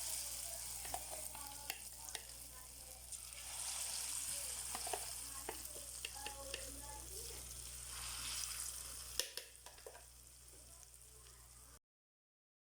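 Lentil vadas deep-frying in hot oil: a steady sizzle with scattered light clicks. The sizzle drops away about nine seconds in, and the sound cuts off abruptly near the end.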